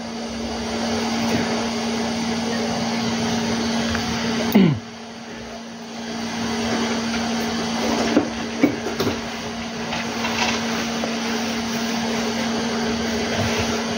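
Hot-air rework station blower running with a steady whoosh and hum; it drops away sharply a little under five seconds in and builds back up over the next second or so. A few light clicks follow about eight to nine seconds in.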